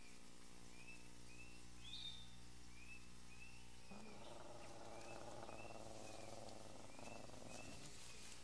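Faint jungle ambience: a short chirp repeats at an even pace, a bit more than once a second, with a single higher rising chirp about two seconds in. From about four seconds in until about seven and a half, a low, rough rasping sound joins it.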